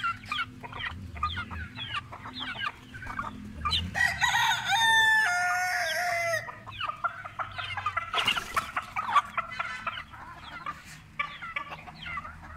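Chickens clucking, with a rooster crowing once, a long call about four seconds in lasting some two seconds.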